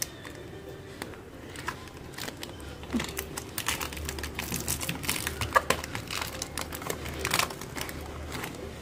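A plastic packet being pulled and worked loose from thick frost in an iced-up freezer compartment: irregular crunching of ice and crinkling of plastic, sparse at first and busiest from about three seconds in. The packet is frozen fast in the frost, a sign that the freezer badly needs defrosting.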